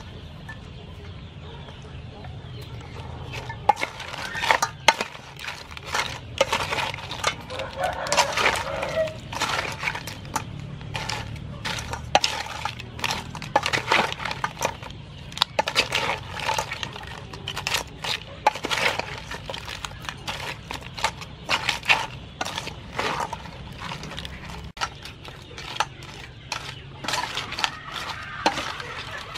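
Crab salad being tossed in a stainless steel bowl: pieces of blue crab shell and shredded vegetables clattering against the metal in irregular clicks and knocks, starting about three seconds in. Near the end a wooden spoon stirs the bowl.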